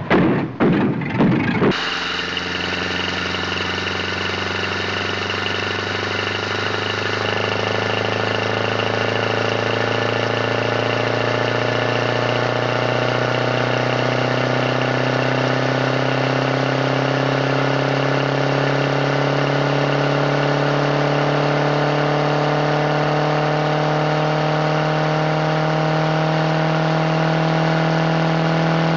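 A few thumps, then about two seconds in an engine sound starts abruptly and runs steadily, its pitch creeping slowly upward.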